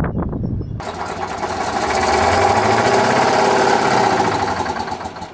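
The Big Bud 16V-747's 16-cylinder Detroit Diesel 16V92T two-stroke engine running hard with a dense, rapid clatter, getting louder and then easing off. A lower, more distant tractor rumble is heard in the first second.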